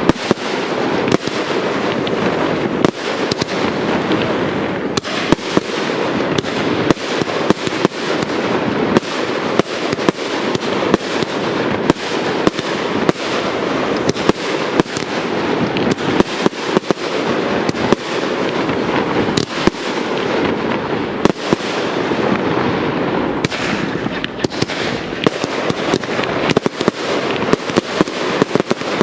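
Aerial fireworks display in full barrage: many sharp bangs of bursting shells and cakes, packed close together over an unbroken noise of bursting effects.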